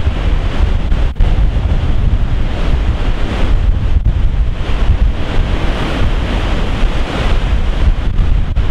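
Storm waves breaking over a rock ledge, the surf rushing and swelling louder several times. Heavy wind buffets the microphone with a low rumble.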